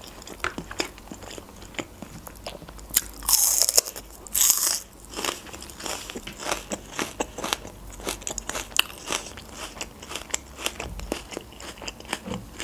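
A person chewing a mouthful of food close to the microphone: many small mouth clicks all through, with two louder noisy bursts about three and four and a half seconds in.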